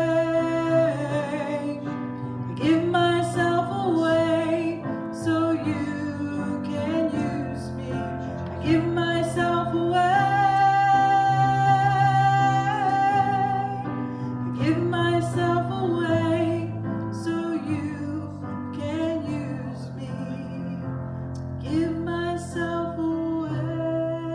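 Music with singing: a sung melody over steadily held instrumental chords.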